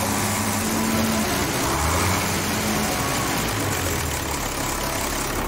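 Schlüter 1250 Super tractor engine running steadily, heard close up, freshly rebuilt with new pistons and liners.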